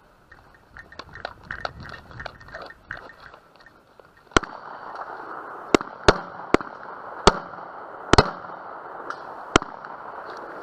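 Light clicks and rustling of movement, then, about four seconds in, a string of about eight gunshots at uneven spacing over some five seconds, two of them in quick succession.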